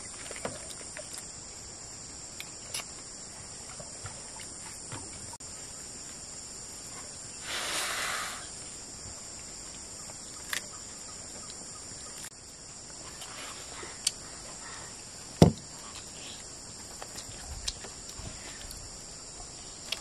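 Steady high-pitched insect chorus. About eight seconds in there is a brief rustle, and about fifteen seconds in a single sharp knock, the loudest sound.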